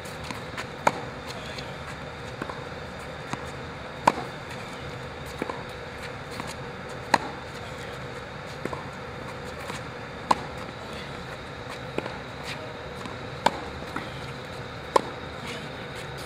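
Tennis racket strikes on a ball in a rally: six sharp pops, mostly about three seconds apart, with fainter knocks in between.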